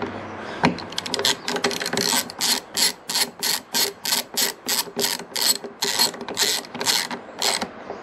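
Hand ratchet with a socket extension clicking in quick back-and-forth strokes, about three a second, as it runs a mirror mounting bolt down. The clicking starts about a second in and stops shortly before the end.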